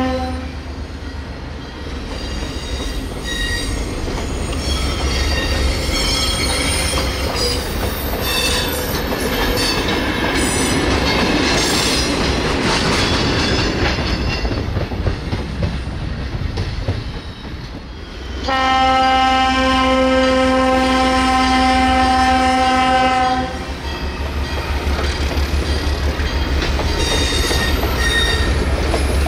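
Freight cars rolling past with steel wheels squealing and clacking over the rail joints. The horn of an ALCO S6 diesel switcher ends a blast right at the start and sounds one long steady blast about two-thirds of the way through, after which the wheel clacking keeps a regular beat.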